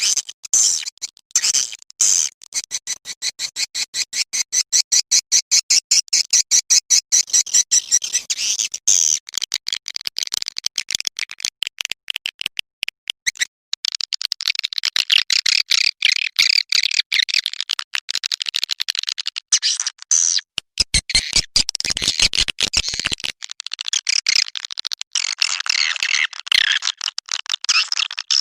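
A recorded swiftlet lure call: rapid trains of high twittering chirps and clicks from edible-nest swiftlets, repeated without a break except for a short drop about halfway through. It is the kind of call track played in swiftlet houses to draw the birds in to roost and nest.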